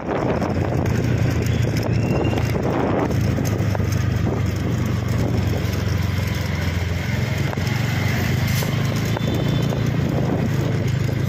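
Motorcycle engine running steadily at low road speed, a constant low hum with road and wind noise over it.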